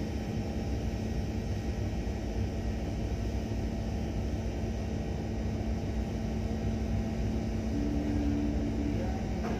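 Boat's diesel engine running steadily, a low rumble with a constant hum over it; a short higher tone sounds briefly near the end.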